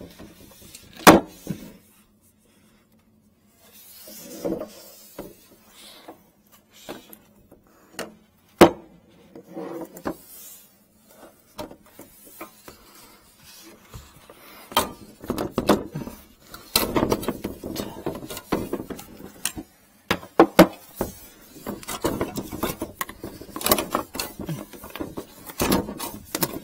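Plastic drain pipes and a corrugated sink drain hose being worked by hand under a sink: scattered sharp knocks and clunks with rubbing and scraping between them, the loudest knocks about a second in and about eight seconds in, and busier handling in the second half. It is the work of pulling a broken-off sink hose out of the drain pipe.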